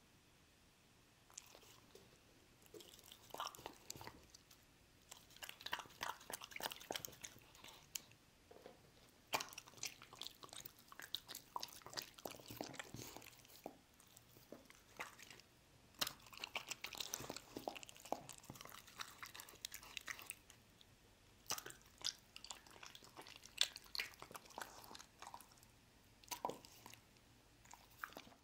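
A dog chewing slices of rice cake (tteok) from rice-cake soup, in irregular bouts of chewing and biting with short pauses between them.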